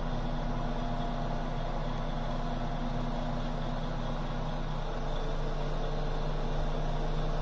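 Diesel engine of a DAF crane lorry running steadily, powering its hydraulic crane as it lifts a boat; the engine note strengthens slightly about five seconds in.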